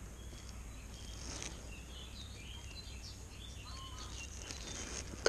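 Outdoor lakeside ambience: birds chirping and calling over a steady low rumble, with a single sharp snip of scissors right at the end as rig foam is trimmed.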